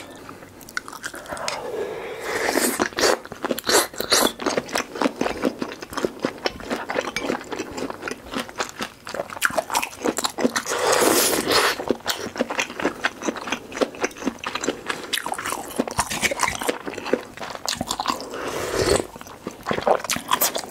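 Close-miked eating sounds: chewing and crunching on mala soup ingredients, with a long slurp of broth from a ladle about eleven seconds in.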